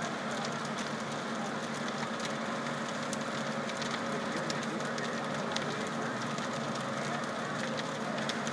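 Fire engine running steadily as it drives its pump, with a building fire crackling and giving off scattered sharp pops.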